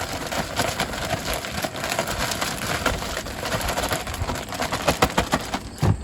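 Plastic bag crinkling and rustling in quick, irregular crackles as it is handled with fish pieces dredged in flour inside, with a dull thump near the end.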